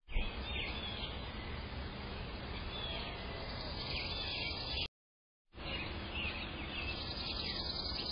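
Steady outdoor background noise through a security camera's microphone, with birds chirping briefly a few times. The sound cuts out completely for about half a second a little before the middle.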